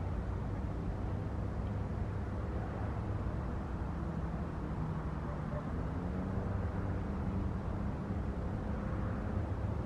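Distant airliner approaching to land: a steady low engine rumble with faint humming tones that slowly shift in pitch.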